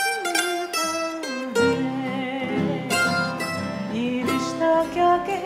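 Mandolin playing a plucked melody, with fuller, lower accompaniment joining about a second and a half in.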